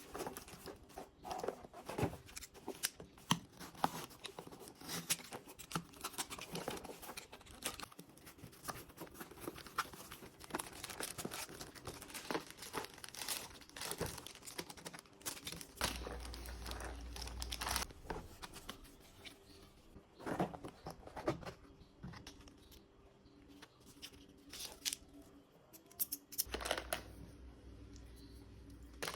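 Parcel packaging being handled and opened: plastic and paper torn and crinkled in a long run of irregular rustles and clicks, thinning out near the end.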